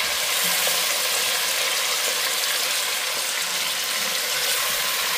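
Pork ribs sizzling in hot oil as they are seared in a stainless steel pressure cooker pot: a steady, even hiss.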